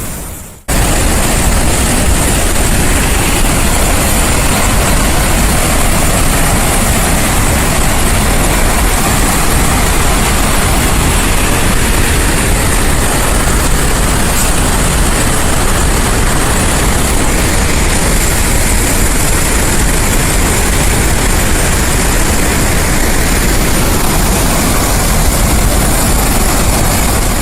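Massive flood release of water from Summersville Dam's outlet works, a loud, steady rush of churning water with no change in level, after a momentary gap right at the start.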